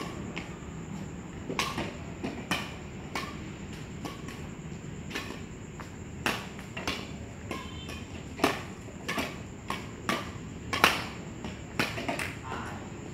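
Badminton rackets hitting a shuttlecock in a rally: a string of sharp, irregular smacks, roughly one every second, over a steady high-pitched hum.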